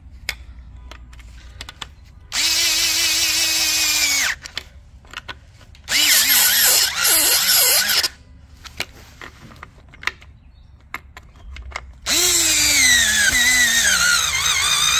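Power drill turning a long hex bit through the access hole in a power steering reservoir bracket to run in its mounting bolt: three runs of a few seconds each. The motor's whine holds steady in the first, wavers in the second, and falls in pitch through the last as the motor slows.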